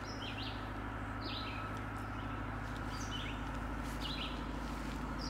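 A small bird calling outdoors, short chirps repeated about once a second, over a steady low rumble.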